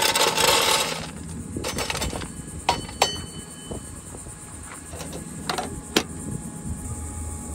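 Wood pellets poured from a metal cup rattling into a Pit Boss pellet grill's hopper for about the first second, then a few scattered clinks and knocks from the metal cup and hopper, one with a short metallic ring. A sharp knock about six seconds in as the hopper lid is shut.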